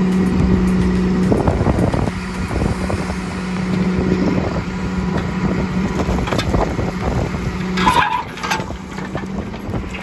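John Deere 310D backhoe's diesel engine running steadily while the rear bucket digs into gravel and rock, with scraping and crunching. The engine note dips briefly twice. There is a louder, sharper scrape about eight seconds in.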